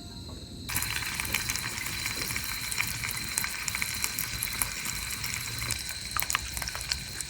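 Food sizzling in a pan, a crackly hiss with scattered pops that starts suddenly about a second in.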